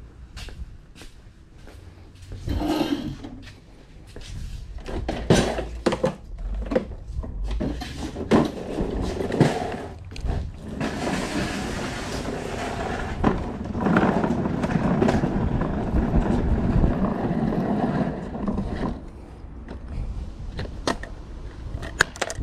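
Equipment being handled and moved by hand, with scattered knocks and clatter, then several seconds of small wheels rolling over asphalt as an electric pressure washer is wheeled out.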